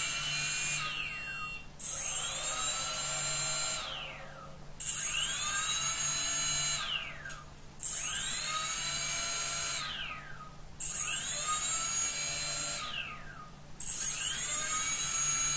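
Hexacopter brushless motors spun one at a time at low throttle in a motor test, each run lasting about two seconds with a second's pause between: each starts with a rising whine that levels off into a steady high whine, then winds down. Five full runs follow the tail of a sixth, some louder than others.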